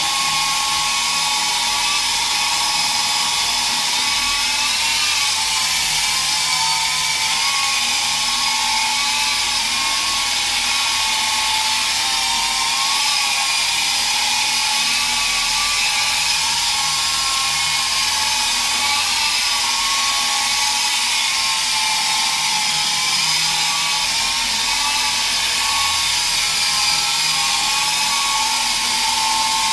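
Small electric RC helicopter in flight: a steady high whine from its motor and rotor over a hiss, the pitch wavering gently up and down as the throttle changes.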